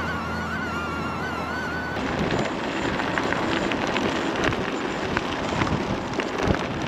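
Electric bike's 3500W brushless motor whining while riding, the pitch wavering, then cutting off suddenly about two seconds in. After that comes wind rush on the microphone with rolling road noise and scattered crackles and clicks.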